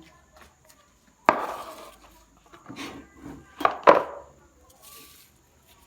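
Kitchen dishes and utensils knocking and clattering: a sharp knock about a second in, then a cluster of knocks, the loudest just before four seconds, and a short scrape near the end.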